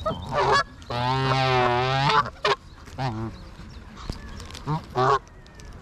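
Geese honking: several separate calls, one long drawn-out honk held for over a second starting about a second in, with shorter honks around it.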